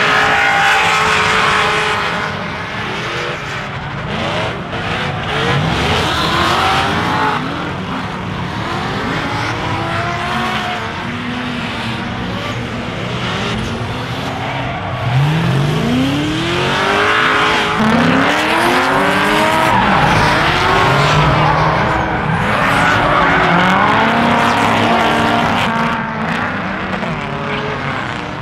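Drift cars sliding in tandem: several engines rev up and down over and over, with the hiss and squeal of tyres spinning.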